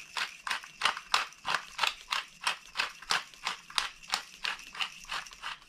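Hand pepper mill grinding peppercorns, a short rasping crunch with each twist, about four a second, stopping near the end.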